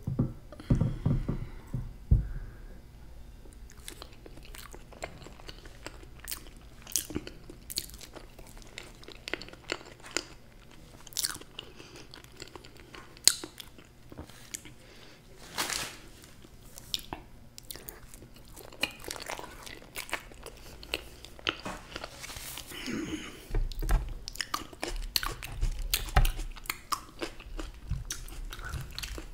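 Close-miked eating of fruit and sweets: irregular wet biting and chewing, with sharp mouth clicks and smacks. There are a few low thumps near the start and again toward the end.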